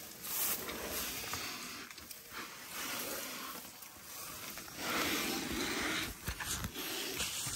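Irregular breathy hissing and rustling from young African elephants right up against the microphone, as their trunks and skin brush close. The longest and loudest burst comes about five seconds in.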